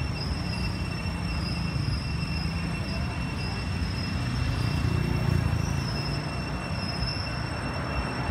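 Steady low rumble of outdoor background noise, swelling slightly about five seconds in, with a thin, steady high-pitched whine over it.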